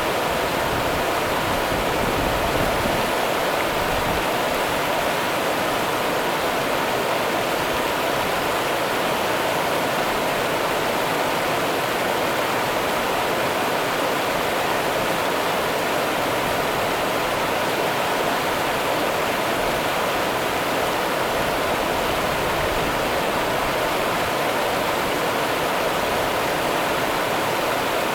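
Rio Grande river water running steadily, an even rushing noise with no breaks or changes.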